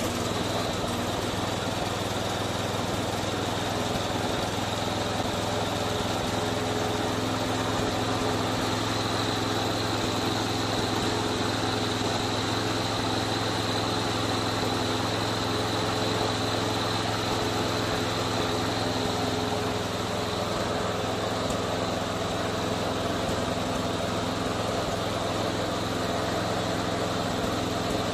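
McCulloch Premium 6053CD lawn mower's petrol engine running steadily at an even speed, with no revving or misfiring.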